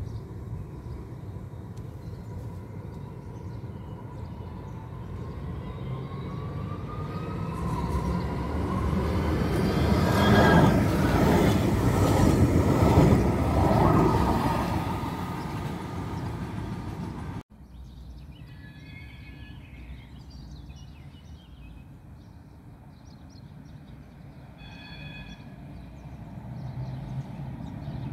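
Electric tram passing close, its motors whining and rising in pitch as it builds speed, loudest about ten to fourteen seconds in. It cuts off abruptly and is followed by a quieter stretch with two brief high-pitched tones.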